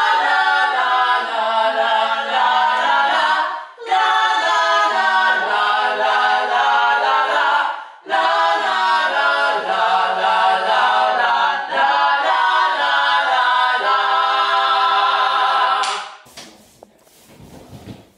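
Several voices singing a cappella in harmony parts, as in a vocal-group rehearsal from sheet music, in four phrases with short breaks between them. The singing stops near the end, leaving faint room sounds.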